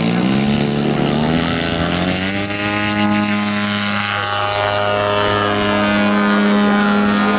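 The 150cc gasoline engine and propeller of a giant-scale RC Pitts Model 12 biplane opening up for takeoff, its pitch rising over the first two seconds or so, then running steadily at full power through a vertical climb.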